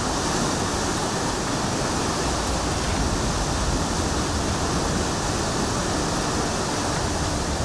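Steady rushing noise of fast-flowing floodwater.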